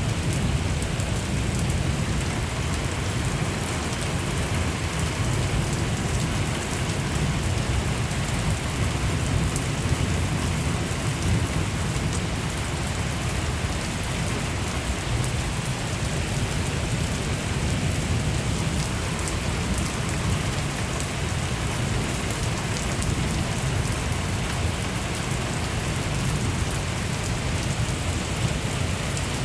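Heavy rain falling steadily during a thunderstorm, with a steady low rumble of wind buffeting the microphone.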